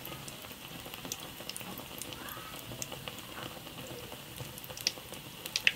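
Bread pakoras in gram-flour batter deep-frying in hot oil: a steady sizzle with scattered crackles and pops, a few louder pops near the end.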